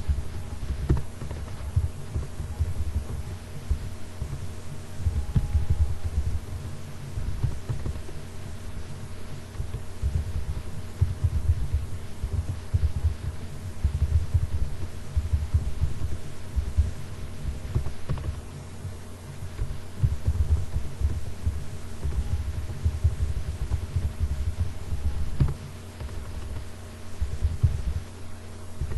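Irregular low thudding throughout, over a steady hum.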